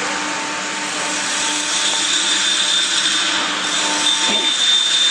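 Steady whirring of running machinery, a motor's hum with a high whine that grows stronger about two seconds in.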